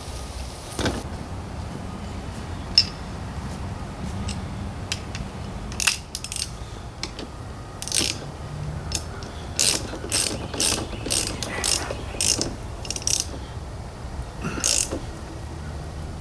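Socket ratchet wrench clicking in a string of short strokes as it works a nut.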